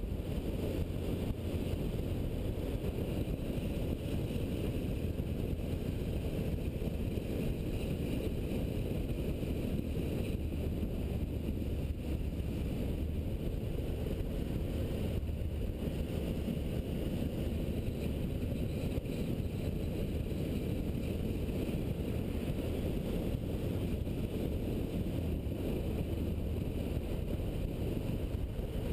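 Triumph motorcycle cruising at a steady road speed: engine running with wind rushing over the camera microphone, a steady low noise throughout.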